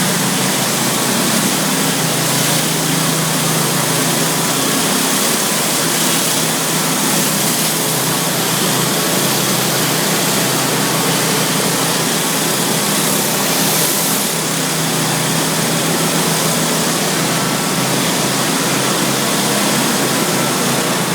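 Pressure washer running steadily: an engine hum under the even hiss of high-pressure water spray.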